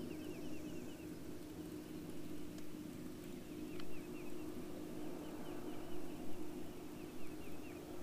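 A songbird calling in quick runs of short chirps over a steady low hum, with a single sharp click about four seconds in.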